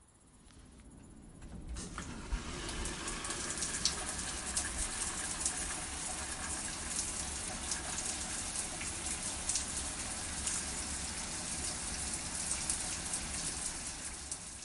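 Shower running: a steady rush of water spraying and splashing with many small droplet ticks, building up over the first two seconds and fading out at the end.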